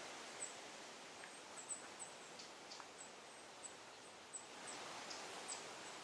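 Quiet forest ambience: a steady hiss of outdoor background noise with about a dozen faint, very high-pitched ticks scattered irregularly through it.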